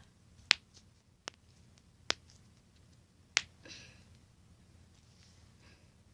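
Knuckles cracking: four sharp pops within about three seconds, the first and last the loudest.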